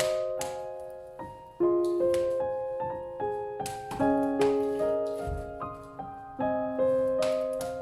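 Solo piano music: a slow, gentle piece of single notes and chords, each struck and left to ring and fade.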